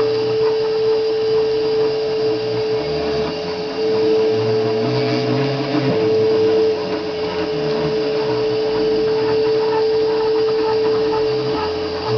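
Stepper motors of a homemade wooden CNC machine whining steadily as it moves a marker pen through a drawing, with lower tones that shift pitch every second or so as the axes change speed and direction.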